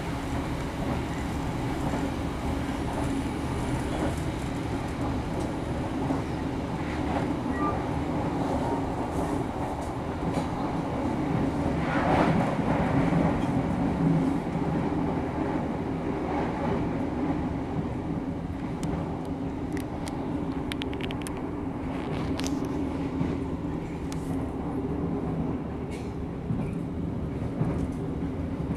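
Running noise inside a moving business-class passenger train coach: a steady rumble of wheels on rail with a low hum, swelling slightly about halfway through, with scattered light clicks and rattles in the later part.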